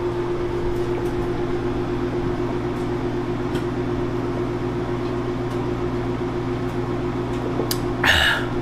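Microwave oven running: a steady electrical hum. A short exhale comes near the end.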